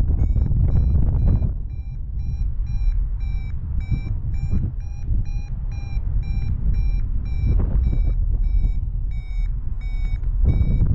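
Paragliding variometer beeping in a steady run of short tones, two to three a second, the climb tone of a glider rising in a thermal. Under it, wind rushes on the microphone, swelling in the first second or so and again near the end.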